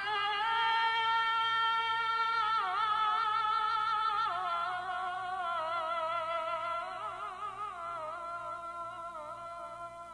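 A single held, voice-like musical tone, like a sung or synthesised 'aah', wavering in pitch and sliding down in a few steps while it slowly fades.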